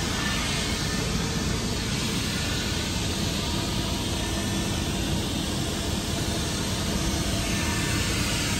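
Cadillac Escalade's V8 engine idling steadily, a low hum under a faint hiss.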